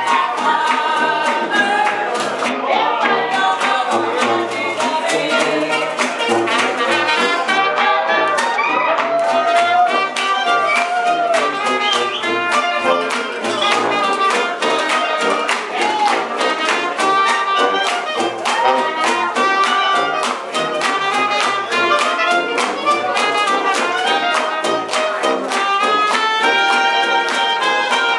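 Live traditional jazz band playing a spiritual, with trumpet and brass carrying the melody over sousaphone bass and a steady strummed rhythm.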